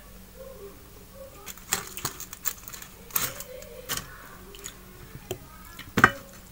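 Close-miked eating sounds: a run of small clicks and smacks from chewing fried fish and picking it apart by hand, with one sharp, louder click near the end.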